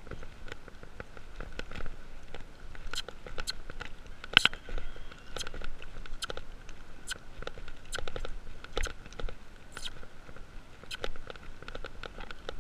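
Irregular clicking and creaking of a walking horse's saddle, bridle and bit, close to the microphone, with one sharper click about four seconds in. Under it runs a faint steady high hum.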